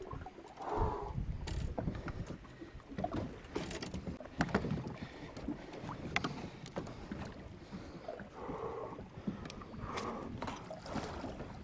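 Water lapping and sloshing against a small boat's hull over a steady low rumble, with irregular sharp clicks and knocks scattered throughout.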